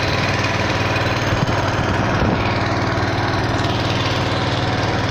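A small motorboat's engine running steadily as the boat moves along, with an even drone that holds the same pitch and level throughout.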